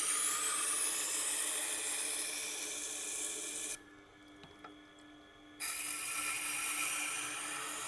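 Knife blade grinding against a powered sharpening wheel dressed to 80 grit, reprofiling the edge: a harsh rasping with a sweeping pitch as the blade is drawn along the wheel. About halfway the grinding stops abruptly for about two seconds, leaving the motor's steady hum and a couple of light clicks, then the next pass starts.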